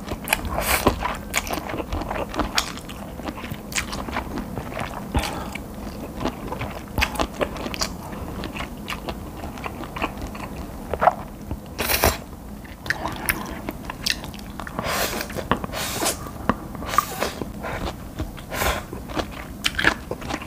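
Close-miked eating sounds: spicy Buldak stir-fried noodles being slurped and chewed, with a steady run of wet mouth clicks and smacks and a few longer slurps.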